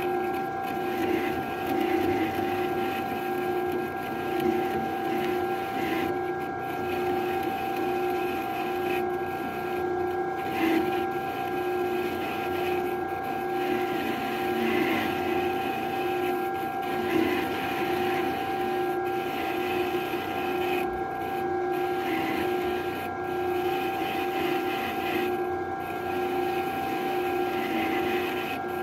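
Small benchtop metal lathe running steadily with an even motor and gear whine, the spinning chuck carrying a steel pin while a lathe tool cuts a shallow grease groove into it.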